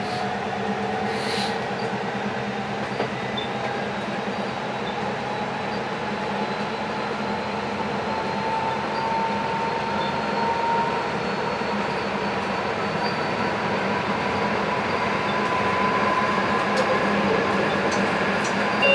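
VTA light rail train running between stations, heard from inside the car: a steady rumble of wheels on the rails. Over it runs a thin whine that climbs slowly in pitch through the first half, then holds steady.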